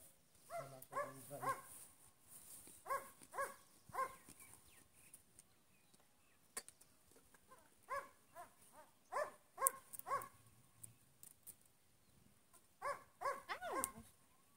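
A dog barking in short bouts of a few barks, coming every few seconds, with a few sharp clicks between the bouts.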